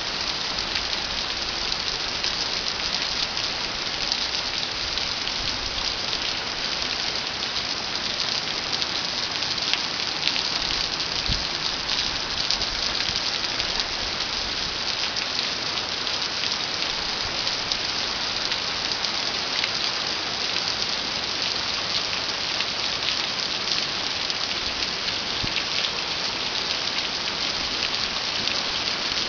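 Heavy rain pouring steadily, a dense even hiss of drops hitting surfaces with scattered sharper drop ticks.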